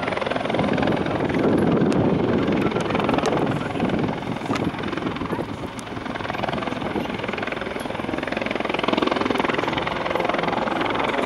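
Bell 412 helicopter hovering low, its four-blade main rotor beating in rapid, even pulses. The sound eases a little midway and builds again toward the end.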